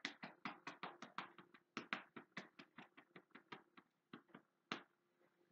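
Faint, quick pats of the hands on the upper back and shoulder blades, about five a second in an even run, stopping near the end.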